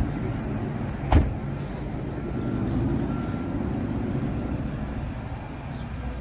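Steady low rumble of road traffic and running vehicles, with a single sharp knock about a second in.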